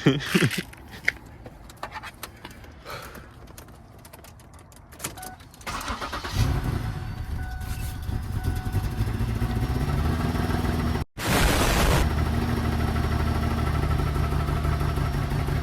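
Scattered clicks and key rattles, then a car engine cranking and catching about six seconds in and running on with a steady low note, with a brief hissy burst partway through. The engine is making a noise that it shouldn't just after a tune-up reassembly, which the owner puts down to a part missed when putting it back together.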